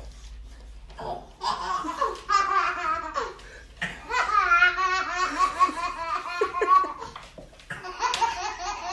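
Baby laughing in three bouts of rhythmic belly laughs with short breaks between: the first about a second in, the next at about four seconds and the last near the end.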